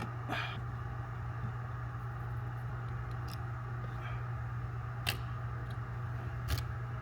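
A few light clicks and taps from handling plastic interior light parts and trim, over a steady low hum: one near the start, one about five seconds in and one near the end.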